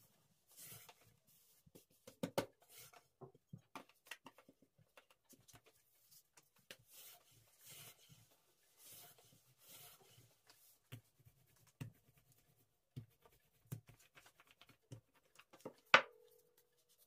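Long thin wooden rolling pin rolling out hand-made phyllo dough on a floured wooden tabletop: soft, repeated rubbing swishes as the pin and dough sheet roll back and forth, with light wooden knocks. Near the end comes one sharp knock of wood on the table with a brief ringing.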